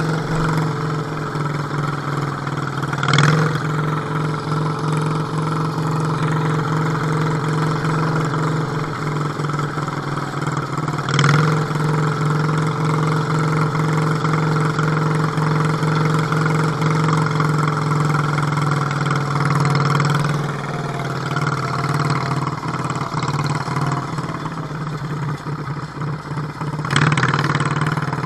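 Wheel Horse garden tractor engine running steadily as the tractor drives, with a few brief louder surges: one a few seconds in, one about a third of the way through and one near the end.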